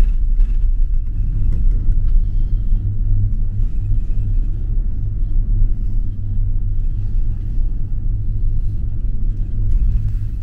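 Steady low rumble inside a detachable gondola cabin riding along its haul rope.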